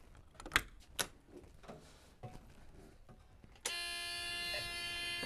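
A couple of sharp knocks, then a truck's electrical warning buzzer comes on abruptly with a steady, unbroken tone a little over halfway through, as the battery is switched on.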